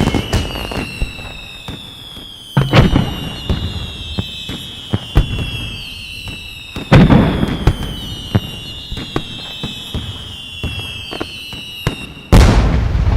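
Fireworks: three loud bangs about five seconds apart, with scattered crackling pops between them. A high whistle slides slowly downward between the bangs.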